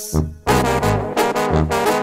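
Banda sinaloense brass music without vocals: a brass band plays a rhythmic instrumental passage over pulsing bass notes, resuming after a brief break about half a second in.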